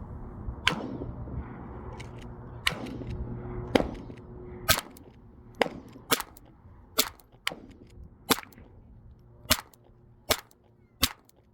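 A Browning 1911-22 A1 .22 LR pistol is fired shot after shot: about a dozen sharp cracks at an uneven pace, roughly one to two a second. A low hum runs under the first half and stops a little before the middle.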